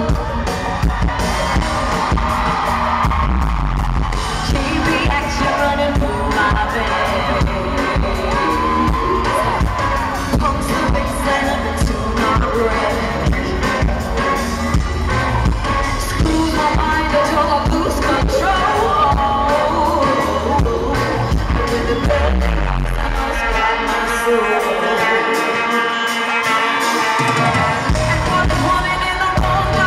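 Live pop concert music: a girl group singing over a loud band with a heavy drum and bass beat. About three-quarters of the way through, the bass and drums drop out for a few seconds while the vocals carry on, then the beat comes back.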